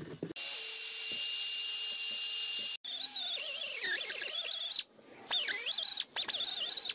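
Straight die grinder with a surface-conditioning disc running against a fresh weld on a steel lever. Its whine wavers in pitch as the disc bears on the metal, stopping and restarting a few times.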